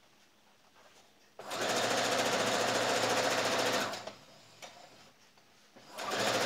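Brother XR3140 computerized sewing machine stitching piping onto fabric in two runs. It starts about a second and a half in, runs steadily for about two and a half seconds and stops. After a short pause it starts again near the end.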